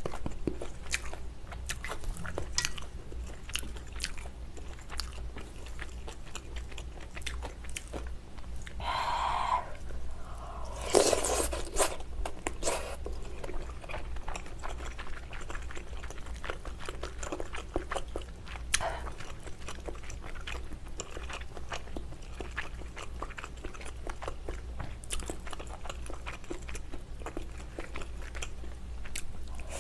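Close-miked chewing and biting of food, with wet mouth clicks and some crunching. A brief hum-like sound comes about nine seconds in and a louder rush about eleven seconds in, over a steady low hum.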